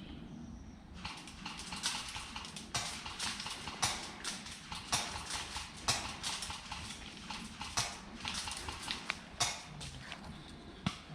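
Footsteps crunching on dry ground, an irregular run of steps starting about a second in.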